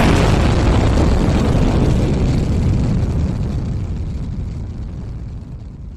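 Explosion sound effect: the long, low rumble of a big blast, loud at first and fading slowly over several seconds.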